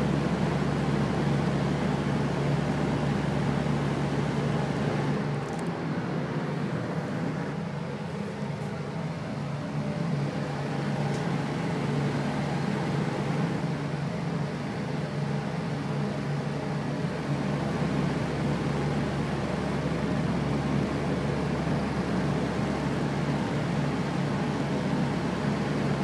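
Electric fan running steadily: an even rush of air over a low, constant motor hum, briefly a little softer a few seconds in.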